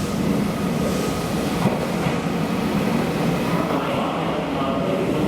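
Meitetsu electric train moving through the platform, a steady loud rumble of wheels and running gear, with a faint motor whine coming in about four seconds in.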